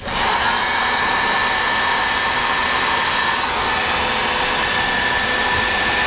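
Electric heat gun coming on and running steadily, blowing hot air to shrink heat-shrink tubing over soldered wire splices: an even rush of air with a faint steady whine.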